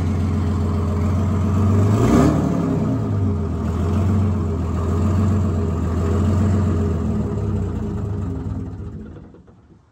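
Detroit Diesel 6-71 two-stroke inline-six diesel engine of a 1973 fire engine running, revving up briefly about two seconds in with a short burst of noise, then fading out near the end.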